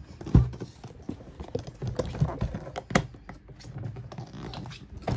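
Irregular clicks, taps and knocks of hands handling a closed Globe-Trotter suitcase, working its leather straps and metal locks, with a heavier thump about half a second in.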